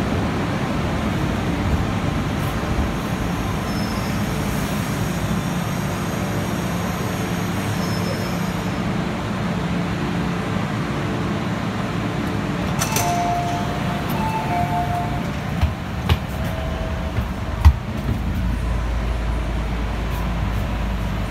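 MTR Disneyland Resort Line M-Train running into the platform and stopping: a steady low rumble with a thin high whine in the first half. A two-note chime sounds several times about halfway through as the doors open, followed by a few clicks and one sharp knock.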